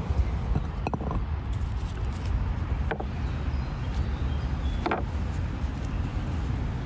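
Wind rumbling steadily on the microphone, with three faint, brief ticks about two seconds apart.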